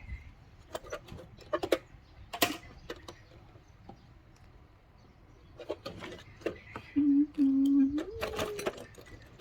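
Small clicks and taps of hand tools working on a phone's glass and frame, in scattered groups. Near the end, a low pitched tone sounds in two short parts and then rises slightly in pitch; it is the loudest sound here.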